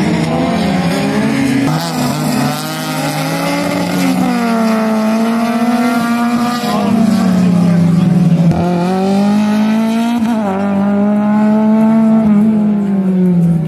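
Race car engines revving hard, their pitch climbing and dropping over and over as the cars accelerate and lift. Two engines overlap near the start.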